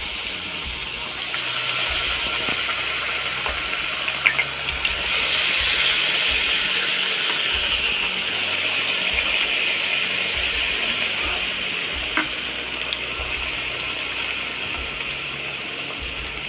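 Battered brinjal (eggplant) slices deep-frying in hot oil in a kadai: a steady hissing sizzle that swells as another slice goes into the oil, with a few light clicks.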